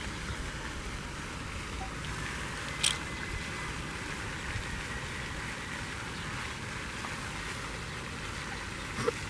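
Steady outdoor background noise, heaviest in the low end, with a sharp click about three seconds in and another near the end.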